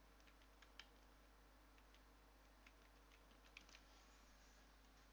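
Faint computer-keyboard typing: a few scattered, irregular keystrokes as a single word is typed.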